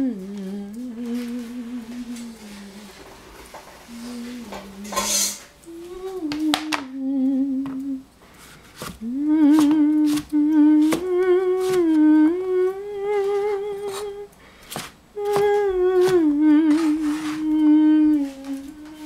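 A person humming a slow tune with a wavering pitch, over sharp knocks of a cleaver chopping zucchini on a plastic cutting board.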